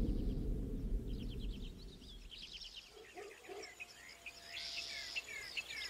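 Small birds chirping in many quick, high notes, several of them sliding down in pitch. A low rumble fades away over the first two seconds.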